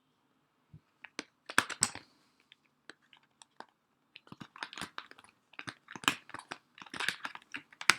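Plastic product packaging crackling, crunching and clicking as it is handled and opened by hand, in irregular clusters with a few sharper clicks.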